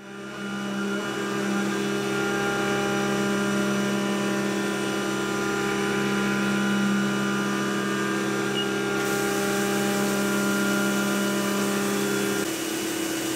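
CNC mill spindle running an end mill that faces an aluminium plate, giving a steady whine of several fixed pitches. About nine seconds in, a hiss of coolant spray joins it, and near the end the lower tones drop away.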